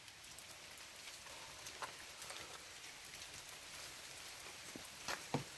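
Light rain falling: a faint, even hiss with scattered drop ticks, and two short louder ticks near the end.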